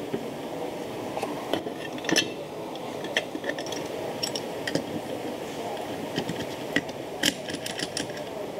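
Scattered light metallic clinks and taps as steel transmission gear shafts and an aluminium crankcase half of a 125cc motorcycle engine are handled and set in place, with a quick run of clinks near the end. A steady hum runs underneath.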